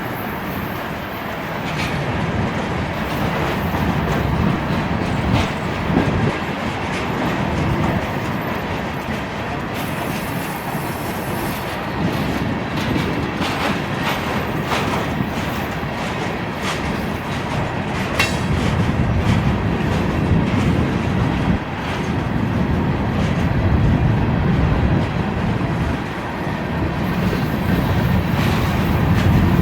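Freight train of empty coke hopper cars rolling past, its wheels clicking steadily over the rail joints, with a brief faint squeal about two-thirds of the way through. Strong wind buffets the microphone in gusts.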